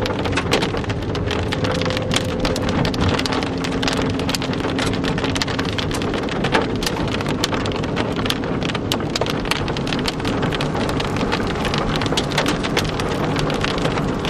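Rain hitting the roof and windshield of a car, heard from inside: a dense, steady patter of drop hits. The car's engine hums faintly underneath for the first few seconds.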